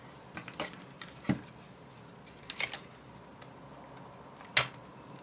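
Desk handling of paper, a clear plastic binder sleeve and a handheld clear tape dispenser: a few light taps and rustles, a quick run of clicks as tape is pulled off the roll, then one sharp snap near the end, the loudest sound, as the tape is torn off on the dispenser's blade.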